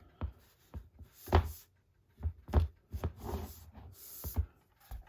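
Handling noise of a metal steelbook Blu-ray case being picked up and turned over: a series of taps and knocks with brief scraping and rustling in between.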